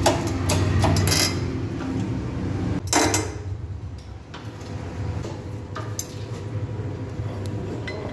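Steel press bar and bearing race clinking and knocking against the cast truck wheel hub as they are set in place under a hydraulic press, with one loud ringing metal clank about three seconds in. A steady low hum runs underneath.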